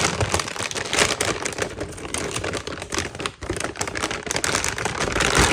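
Handling noise from unpacking: many rapid light clicks and taps mixed with rustling.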